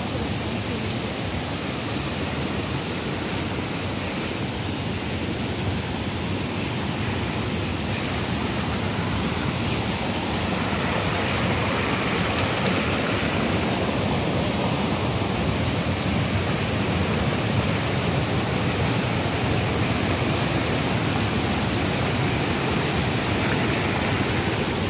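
River water rushing over rocky cascades and small waterfalls: a steady, even rush of white water that grows a little louder about halfway through.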